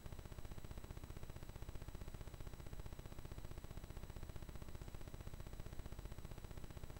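Faint steady hiss with a low hum underneath: the recording's background room tone, with no distinct sound events.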